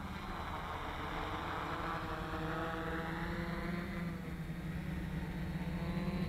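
Quadcopter's Tarot 2814 700KV brushless motors and propellers humming steadily in flight, the pitch drifting slightly as the throttle changes.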